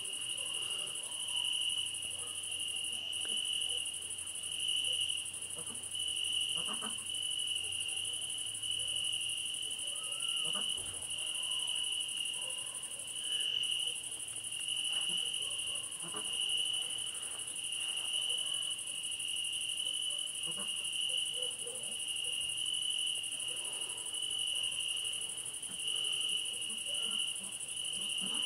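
Crickets chirping in a summer night chorus: a steady high trill that swells and fades in regular pulses, over a continuous higher-pitched hiss of insects.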